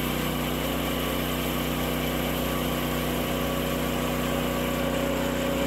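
Woodland Mills HM130MAX portable bandsaw sawmill running steadily, its gas engine holding a constant speed while the band blade cuts lengthwise through a pine log.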